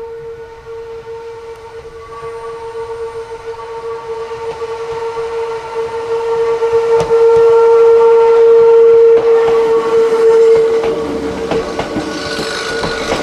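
Hakone Tozan Railway electric train approaching with a steady, single-pitched whine that grows louder as it nears. About eleven seconds in, the whine gives way to the rumble and clicking of the cars rolling past.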